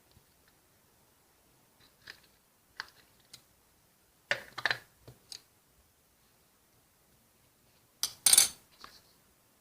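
Slime being handled and squeezed, giving irregular short clicks and crackling pops, with louder clusters about four seconds in and again near the end.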